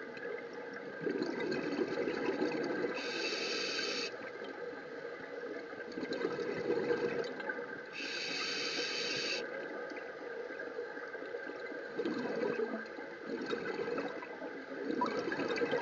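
Scuba regulator breathing heard underwater from inside a camera housing: two hissing inhalations several seconds apart, with the bubbling rumble of exhaled air between them.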